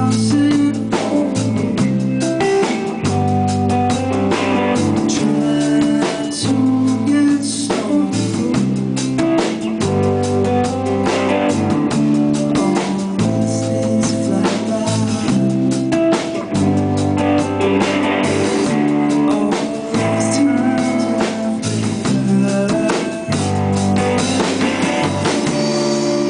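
Live band playing amplified electric guitar, electric bass and drum kit, a riff repeating every couple of seconds over a steady beat.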